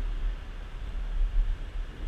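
Skateboard wheels rolling over asphalt, heard as a steady hiss, with wind buffeting the moving camera's microphone as a fluctuating low rumble.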